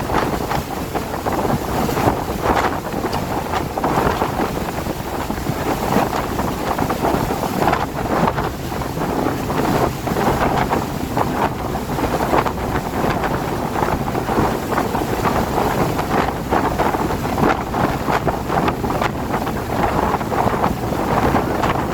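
Wind and rain, with gusts of wind buffeting the microphone in a loud, continuous rushing that swells and falls.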